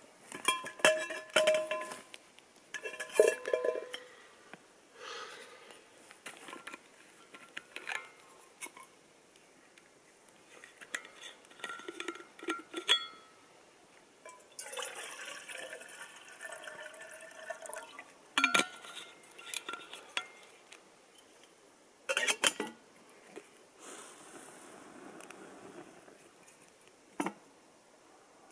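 Metal camp cookware being handled: scattered clinks and clanks with short ringing tones, between stretches of softer rustling.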